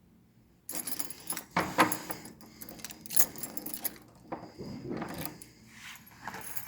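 Irregular knocks, clatters and rattles of objects being handled, starting after a brief hush about half a second in.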